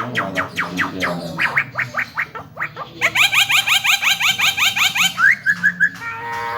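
Javan myna (jalak kebo) singing: fast runs of repeated sweeping notes, about eight to ten a second, switching to a different run about halfway and ending in a short held note.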